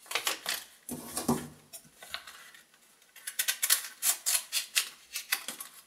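Wrapping paper rustling as it is handled, then from about three seconds in scissors snipping through the paper in a quick run of cuts, about four snips a second.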